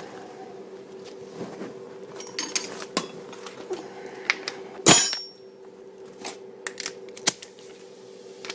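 Metal hand tools clinking and tapping, with one loud metallic clank about five seconds in, during work on a Subaru's front suspension. A steady low hum runs underneath.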